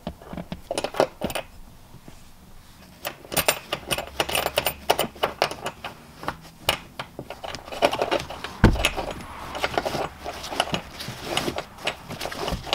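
Metal carabiner and net hardware handled and clipped at a seat bolt, making many small irregular metallic clicks and clinks, with one dull thump about two-thirds of the way through.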